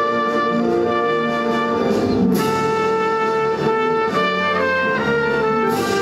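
Orchestral music with brass, held notes moving from one to the next at a steady level.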